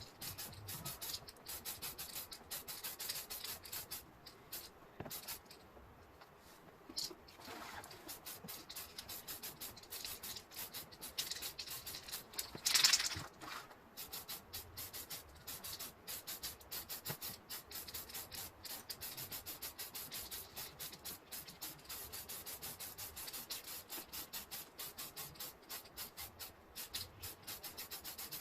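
Aerosol spray can of Tamiya polycarbonate paint hissing in short bursts, the two loudest about a third and about halfway through, over a fast, fine, scratchy crackle.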